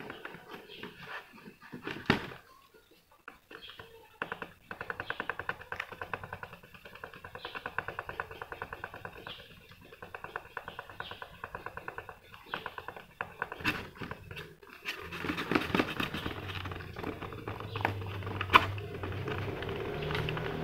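Fingertip rubbing fine polishing compound back and forth over the gloss clear coat of a plastic model car body, a quick run of small squeaky friction strokes, with a couple of sharp knocks as the shell is handled.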